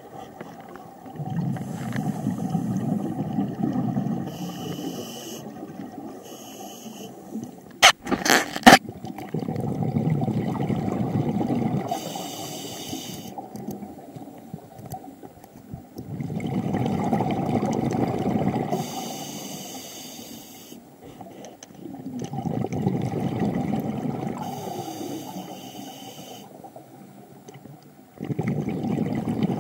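Scuba diver breathing through a regulator, heard underwater: a short high hiss on each inhale, then a few seconds of rumbling, gurgling exhaust bubbles on each exhale, five breaths in a slow steady rhythm. A few sharp clicks about eight seconds in.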